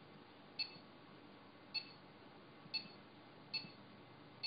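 Uniwell SX8505 EPOS till beeping as its keys are pressed: five short, high electronic beeps, roughly one a second, each confirming a key press while stepping through its programming menu.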